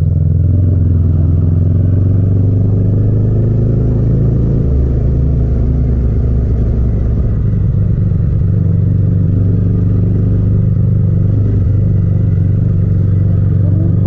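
Yamaha MT-07's parallel-twin engine running in third gear at low city speed, heard from the rider's seat; its low exhaust note holds steady, easing and picking up slightly with the throttle.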